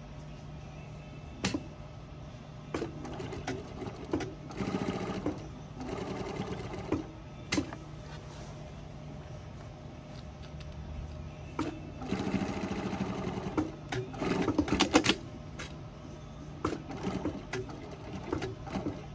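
Industrial sewing machine stitching through heavy uniform fabric in short runs of rapid stitches, stopping and starting as the work is turned, with a few single sharp knocks between runs. A steady low hum runs underneath.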